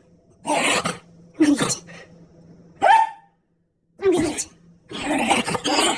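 A small Jack Russell–type terrier sneezing in a run of five short breathy bursts about a second apart, the last one longer, near the end.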